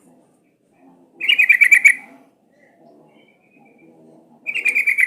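Yellow-vented bulbul singing: two short bubbly phrases of rapid notes, one about a second in and another near the end.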